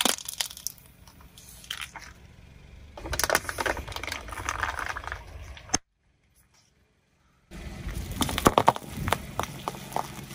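Objects crunching and crackling as a car tyre rolls over and crushes them, in two runs of many sharp cracks broken by about two seconds of silence.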